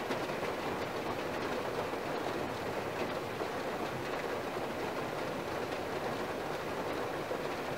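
Heavy rain falling on an SUV's roof and windows, heard from inside the cabin as a steady, dense patter.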